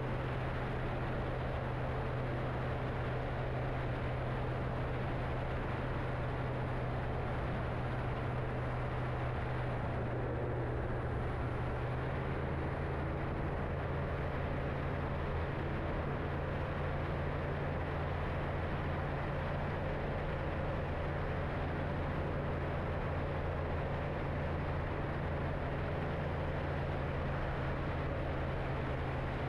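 Kitfox STi light aircraft's engine and propeller in cruising flight, a steady drone with a slight shift in pitch about twelve seconds in.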